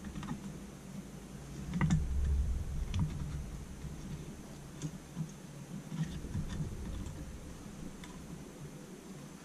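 Light, scattered clicks and taps of small metal parts as a bushing is fitted onto the throttle shaft and linkage of a Holley 4150 carburettor baseplate, with a small cluster of clicks about two seconds in.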